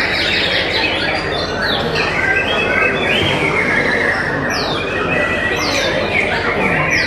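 Several caged white-rumped shamas (murai batu) singing at once in a dense, loud chorus of overlapping whistles and chirps. Sharp high calls that sweep downward cut through several times in the second half.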